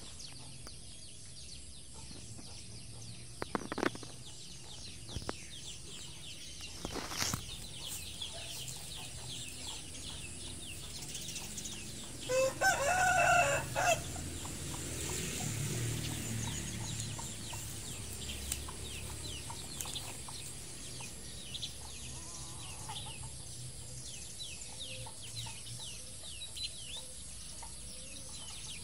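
A rooster crowing once, about halfway through, with faint short high chirps around it.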